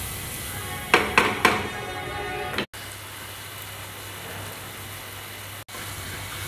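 Chicken gizzards frying in oil and tomato-spice masala in a nonstick pan, sizzling steadily while stirred with a wooden spatula. About a second in, three short ringing notes sound in quick succession and fade, and the sound drops out briefly twice.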